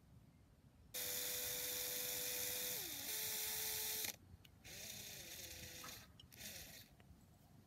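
Electric drill with a small bit boring a hydration hole into an aerated concrete (AAC) block. The motor runs steadily for about three seconds, its pitch dropping briefly as the bit bites, then stops. About half a second later a shorter, quieter second run follows.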